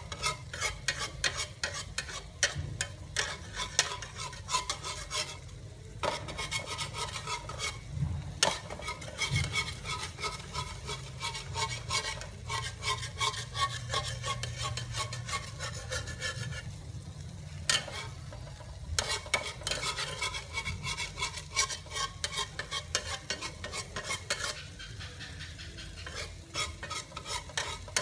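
Tomatoes and egg frying in a pan: a steady sizzle full of rapid crackling pops, dropping back briefly a few times.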